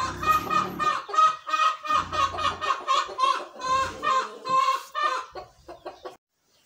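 A chicken clucking in a fast run of short calls, about five or six a second, stopping about six seconds in.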